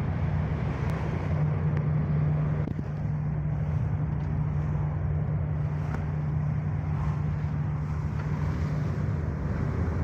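Steady low drone of a coast guard ship's engines and machinery under way, heard on the open deck, with an even hiss over it.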